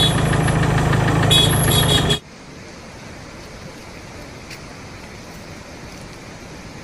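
A loud engine running close by cuts off suddenly about two seconds in, leaving a quieter steady noise.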